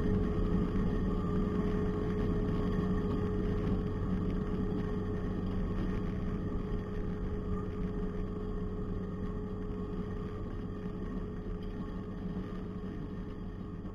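Diesel engine of a Cat wheeled skid steer running steadily with a constant drone, slowly getting quieter.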